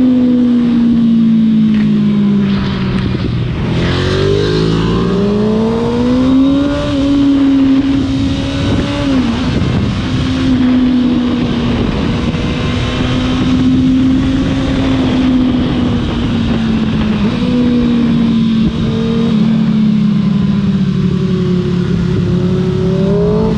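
Kawasaki ZX-6R inline-four sport bike engine under way. It winds down for the first few seconds, then climbs in pitch as it accelerates, and holds a steady cruising speed with a few brief dips, with wind rush over it.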